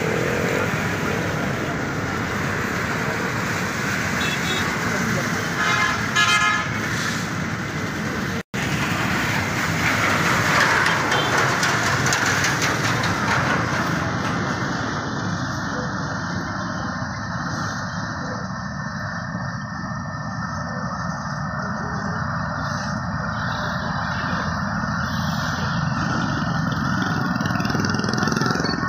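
Peanut roasting drum machine running steadily while roasted peanuts pour and rattle down its chute onto a metal tray. A vehicle horn toots briefly about six seconds in.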